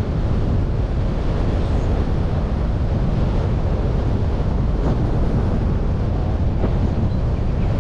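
Steady wind rush on the microphone of a slowly moving car, with low road and tyre noise underneath.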